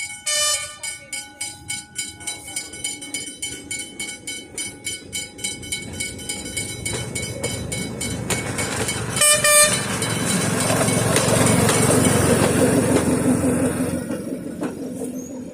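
Puffing Billy narrow-gauge steam train passing. Its whistle gives a short toot just after the start and another about nine seconds in. A rapid, regular ringing beat is heard for the first several seconds, then a rising rush of steam and rolling carriages swells to its loudest about two-thirds of the way through and fades near the end.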